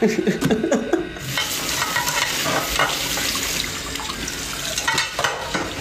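Kitchen tap running, a steady rushing hiss of water that starts suddenly about a second in, after a short bit of voice.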